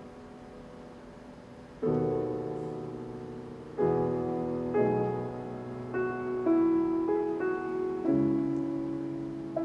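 Grand piano played solo: a soft passage dies away, then full chords are struck from about two seconds in, seven in all, each ringing and fading, coming closer together toward the end.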